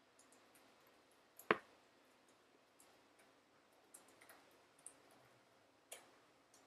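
Tambour hook punching through taut embroidery fabric and pulling thread and beads through: faint, irregular clicks and ticks, the sharpest about a second and a half in and another near six seconds.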